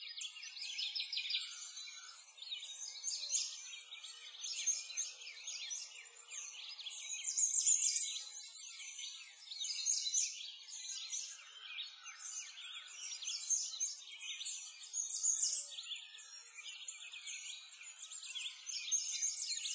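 Birdsong chorus: many small birds chirping and trilling at once, high-pitched and without a break.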